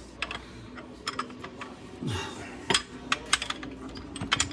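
Scattered sharp metallic clinks and knocks, about a dozen, from metal parts and tools being handled as a Miata's transmission is worked down and free from under the car.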